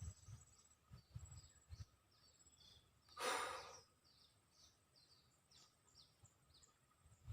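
Faint, repeated short descending bird chirps in a marsh, with a brief loud rush of noise about three seconds in.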